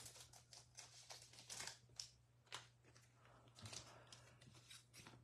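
Faint rustling and light clicks of trading cards and a foil card-pack wrapper being handled, with a low steady hum underneath.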